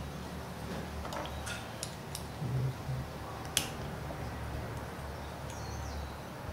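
Small pistol parts being handled and fitted by hand: a few light ticks and rustles, then one sharp click about three and a half seconds in, over a low steady hum.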